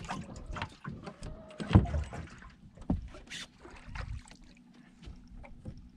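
Irregular knocks, clunks and clicks of people moving and handling gear on the deck of a fishing boat, the loudest clunk about two seconds in, over a faint steady low hum.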